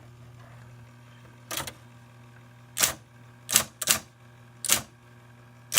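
Underwood 565 electric typewriter being typed on slowly. There are about six sharp key strikes at uneven intervals, over the steady hum of its running motor.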